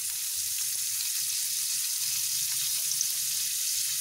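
Sliced onions sizzling steadily as they fry in hot rice-bran oil in a non-stick frying pan.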